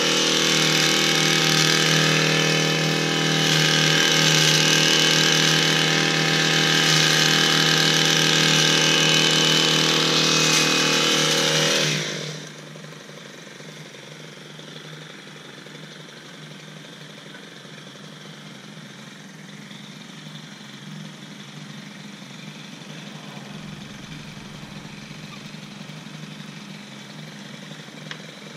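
Gas-engined Stihl long-reach hedge trimmer running at full throttle while cutting the hedge. About twelve seconds in, the throttle is let off and the engine drops to a low idle.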